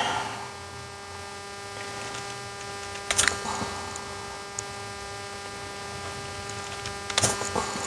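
Wire strippers snapping through the insulation on thin wires: two short sharp clicks, about three seconds in and near the end, over a steady electrical hum.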